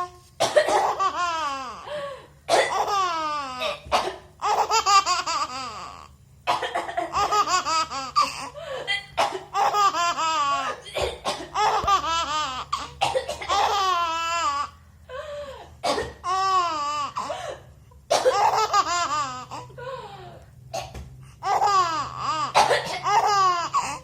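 A baby laughing hard in about a dozen bouts of high-pitched squealing laughs, each falling in pitch, with short pauses between them. The laughter is set off by someone coughing.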